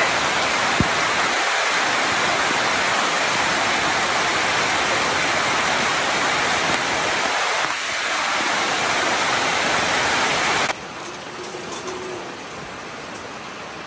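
Heavy rain falling, a dense steady hiss. It cuts off abruptly to a much quieter level about three-quarters of the way through.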